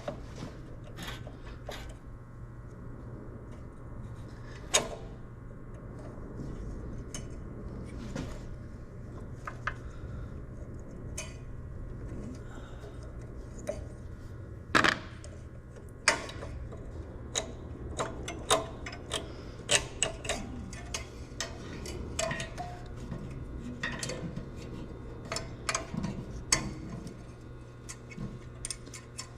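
Scattered metallic clicks, clinks and knocks of hand tools and small parts being handled during repair work on a generator's fuel system, over a steady low hum.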